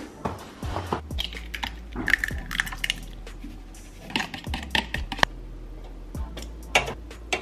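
A string of sharp clicks, taps and cracks from breakfast preparation: an egg carton is handled, eggs are cracked into a plastic tub, and tongs knock against the plastic basket of an air fryer as bacon is laid in.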